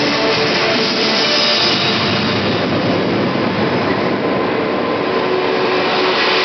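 Audience cheering and shouting loudly and steadily for a bodybuilder posing on stage, with posing music faint underneath.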